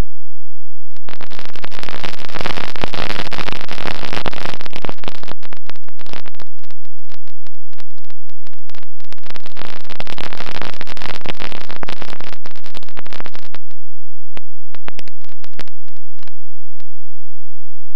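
Harsh, distorted rush of air and motor noise on the microphone of a camera riding on a flying RC plane, cutting out again and again, then a few scattered crackles until it stops about 17 seconds in.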